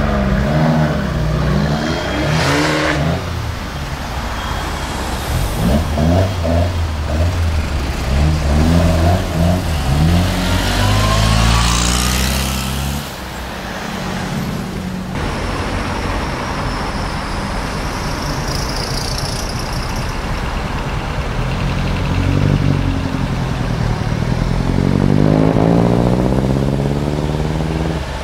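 Sports car engines revving and accelerating away one after another, their pitch rising and falling with each burst of throttle, and one climbing steeply near the end.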